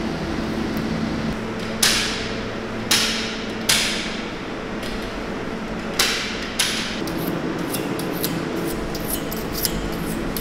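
Meat-processing work on döner spits: five sharp knocks in the first seven seconds, then a quick run of light metallic clicks and scrapes of knives. A steady hum from the cooling plant runs underneath.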